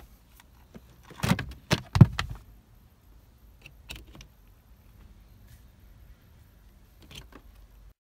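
Sharp plastic clicks and knocks as an OBD2 diagnostic plug is handled and pushed into the diagnostic port under a Citroën C4 Grand Picasso's dashboard. The loudest comes about two seconds in, and a few fainter clicks follow later.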